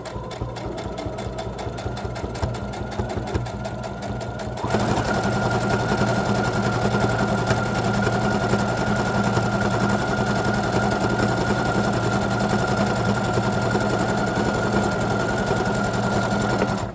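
Electric domestic sewing machine running continuously, stitching along a length of folded binding tape; it speeds up about five seconds in, then runs at a steady fast rate until it stops suddenly near the end.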